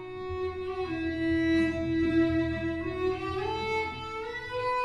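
Solo cello, bowed in long held notes over a steady low part, the melody climbing step by step near the end.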